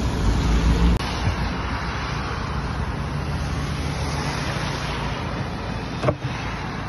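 Steady outdoor rush of storm wind on the microphone and traffic on a wet road, heaviest and lowest in the first second, with one short knock about six seconds in.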